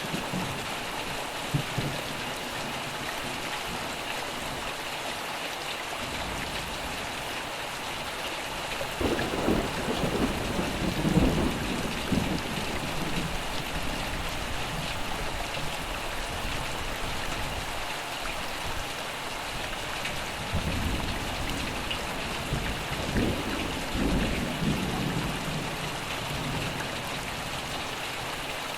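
Steady heavy rain falling, with two rolls of thunder rumbling low beneath it, one about a third of the way in and another about two-thirds of the way in.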